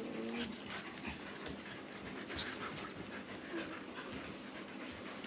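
Several dogs panting and moving about on a wooden floor, with a couple of short whines near the start and another about three and a half seconds in, over scattered clicks of claws on the boards.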